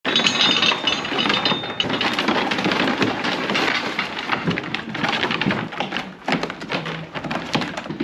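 Sheep hooves clattering on a wooden slatted floor and knocking against the pen rails as a crowded mob shuffles through a race: a dense, continuous jumble of small knocks and scrapes.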